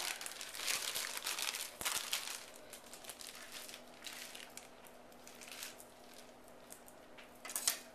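Plastic Ziploc storage bag full of batter being gathered up and handled, crinkling. The crinkling is busiest in the first couple of seconds, then fades to faint rustles, with a short burst near the end.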